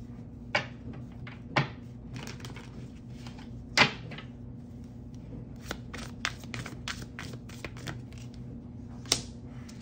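A tarot deck being handled and shuffled: irregular light clicks and slaps of cards, a few of them sharper, with a quicker run of clicks in the second half.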